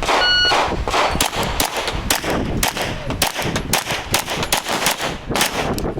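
An electronic start beep, then rapid Glock pistol fire from several shooters on the line, with shots overlapping for about five seconds; some hits ring on steel plates.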